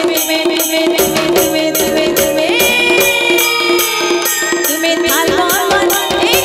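Live Sambalpuri devotional band music: a steady beat of percussion with rattling jingles, and a melody line holding one long high note in the middle before sliding through short glides near the end, with no low bass.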